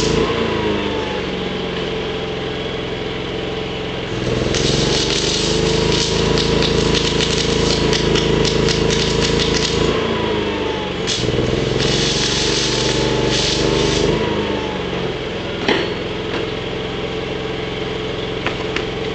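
Gas-shielded (argon) welding arc crackling in two long runs, about five and three seconds, over a steady engine hum whose pitch shifts as each weld starts and stops.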